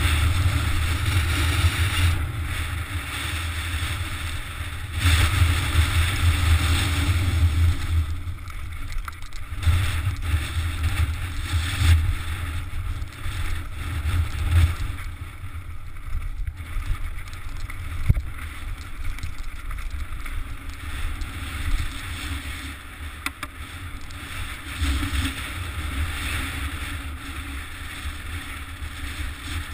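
Wind buffeting a mountain bike's GoPro microphone while the tyres roll and rattle over a rocky stone trail, with a few sharp knocks along the way.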